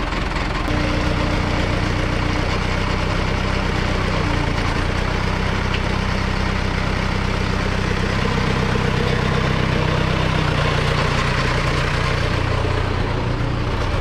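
Diesel engine running at low speed, its steady note getting a little louder about a second in and settling slightly lower near the end.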